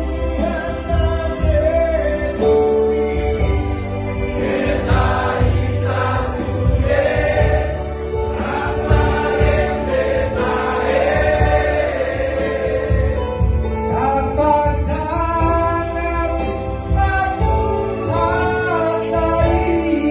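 Batak-language Christmas song sung in three-part vocal harmony over instrumental backing.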